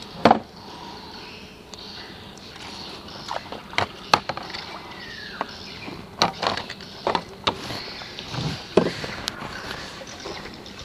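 Scattered sharp clicks and knocks of fishing tackle being handled in a small fibreglass boat: a lure held in gloved hands, the rod and reel moved, gear bumping the hull. The loudest knock comes right at the start, and a single falling whistle sounds about halfway through.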